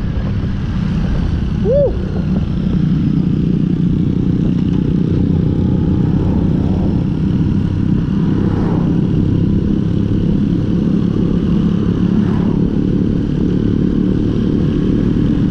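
Motorcycle engine running at a steady cruise, with road and wind noise, heard from the moving bike.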